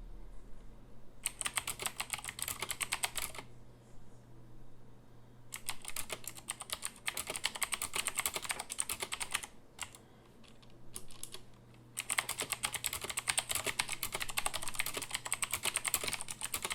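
Corsair K95 RGB mechanical keyboard with clicky Cherry MX Blue switches being typed on: rapid runs of keystrokes starting about a second in, again at about five and a half seconds, and again from about twelve seconds, with short pauses and a few scattered keystrokes between.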